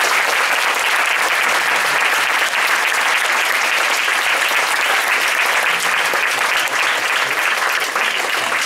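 Audience applauding steadily, a dense crowd of many hands clapping that eases slightly near the end.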